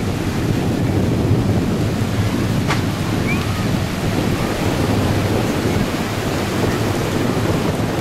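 Small waves breaking and washing up on a shallow sandy beach, a steady rushing surf with wind buffeting the microphone. A brief sharp high sound cuts through once, a little under three seconds in.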